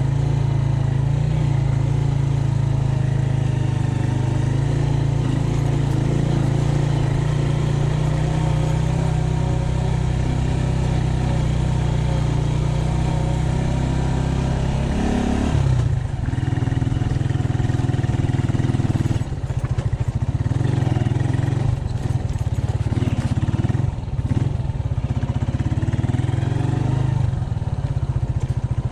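Scrambler motorcycle's engine running at steady throttle. About halfway through the note drops, then comes and goes several times as the throttle is eased off and opened again.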